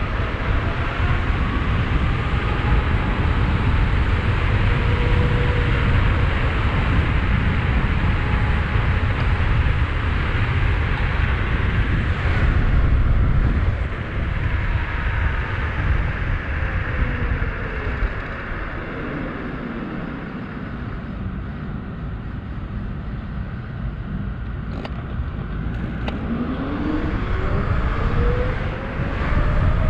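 Wind rushing over a helmet-mounted microphone while riding a 72-volt, 5000-watt DIY electric bike kit, with the motor's thin whine gliding down in pitch about halfway through as the bike slows, then rising again near the end as it speeds up. The rush is loudest in the first half and eases off in the quieter middle stretch.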